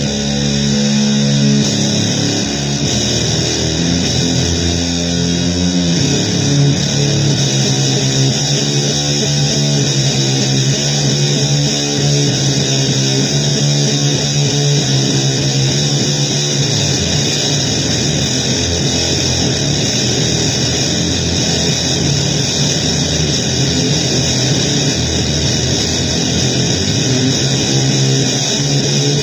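Noisy guitar music: low plucked notes shifting over a steady high hiss, without a break.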